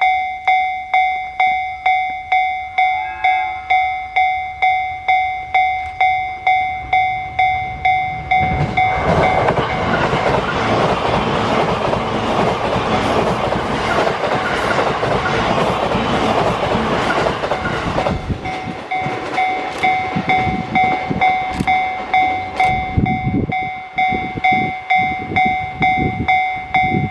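A Japanese railway level-crossing alarm rings its electronic bell in even strokes about twice a second while an E657 series electric express train passes at speed. The train's rush of wheel and running noise drowns the bell for about ten seconds, then the wheels clatter over rail joints as the last cars go by and the bell carries on.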